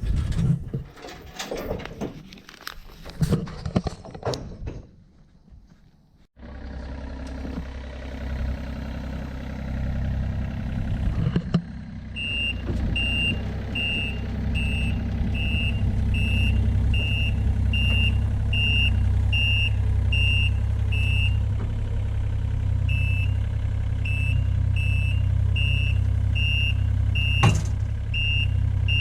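A heavy diesel engine runs steadily while a backup alarm beeps about once a second, with a brief pause partway through. A single sharp knock comes near the end.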